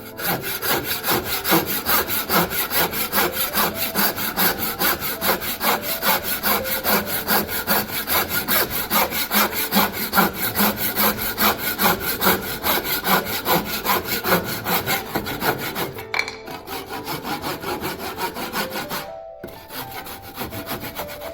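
Saw cutting wood in quick, even back-and-forth strokes, about three a second, changing and thinning out after about sixteen seconds.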